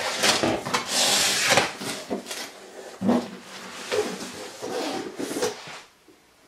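Cardboard box flaps scraping and a paper shopping bag rustling as the bag is pulled out of a shipping box. The scraping is loudest in the first couple of seconds and dies away near the end.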